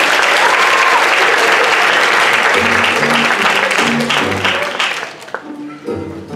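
Audience applauding, fading out after about five seconds. Music with low notes comes in underneath about two and a half seconds in and carries on.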